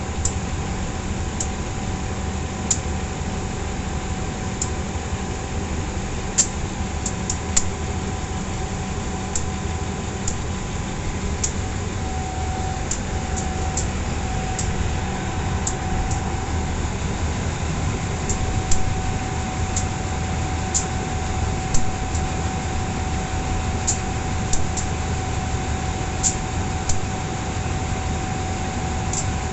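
Steady machine drone of a diesel locomotive being refuelled through a hose: a low rumble under a steady whine, with small sharp ticks every second or two.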